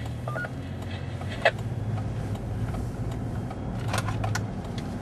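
Steady low hum of car engine and road noise inside the cabin. About half a second in, a few short electronic beeps come from the mobile ham radio, and there are clicks about a second and a half in and again near 4 s.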